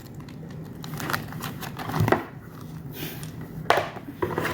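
Handling noise from unboxing a photocard book and binder: a few light taps and clicks with soft rustling.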